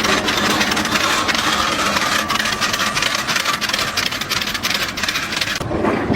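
A machine's motor running with fast, irregular clattering; the sound changes abruptly near the end.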